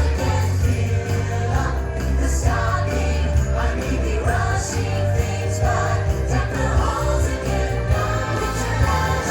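Christmas parade music with singing voices and a choir over jingle bells and a steady heavy bass beat.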